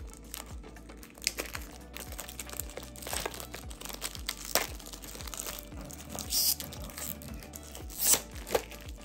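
Clear plastic wrap being torn and peeled off a small cardboard toy box, crinkling and crackling in short bursts, with the sharpest crackles near the end. Background music plays underneath.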